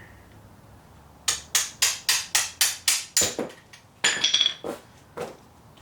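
Hammer blows on metal, about four a second for two seconds, then a cluster of ringing metallic clinks and two more strikes. This is the sound of knocking the tank-mount bungs off a Harley-Davidson Sportster frame.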